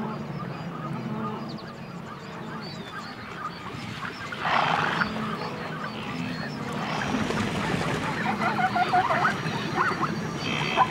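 Herd of wildebeest grunting: a low murmur of calls that turns into many overlapping nasal honking calls, louder and busier from about seven seconds in. A short rush of noise comes about four and a half seconds in.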